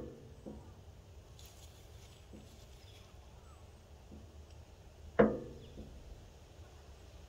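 A single sharp knock with a short ringing tail about five seconds in, with a few faint ticks before and after it.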